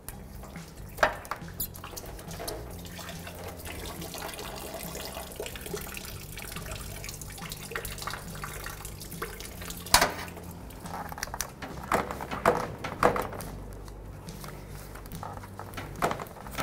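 Engine coolant trickling and dripping from the radiator into a bucket, with a few sharp clicks and knocks of a hand tool prying at the stuck lower radiator hose; the loudest click comes about ten seconds in.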